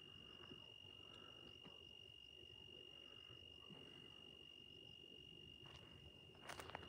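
Faint, steady high-pitched trill of a cricket over near silence, with a few short crunching clicks near the end.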